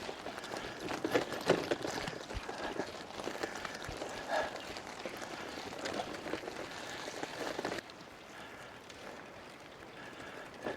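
Bicycle rolling over a rough track, its tyres crunching with many small, irregular clicks and rattles. It quietens about eight seconds in.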